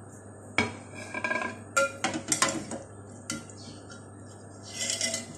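Steel serving spoon clinking and scraping against an aluminium cooking pot as cooked biryani rice is scooped up: several sharp knocks, some with a short metallic ring, then a softer scrape near the end.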